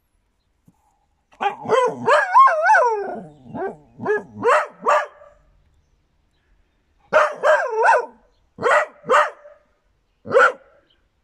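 Small mixed-breed dog howling in several bouts: a long, wavering howl about a second and a half in, followed by shorter yowls and bark-like yips with pauses between them.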